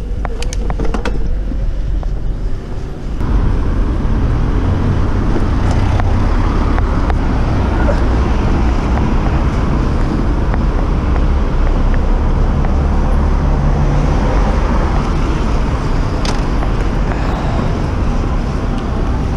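Steady rushing noise of a bicycle riding along a busy city street: wind and road rumble on the microphone mixed with passing car traffic. It comes in abruptly about three seconds in, after a few sharp clicks.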